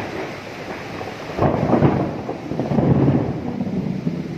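Thunder over steady rain: a sudden rumble breaks in about a second and a half in, crackles and rolls on with a second swell, then fades near the end.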